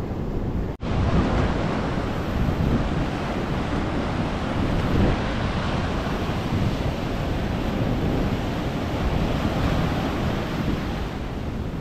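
Ocean surf breaking and washing up a beach, with wind buffeting the microphone.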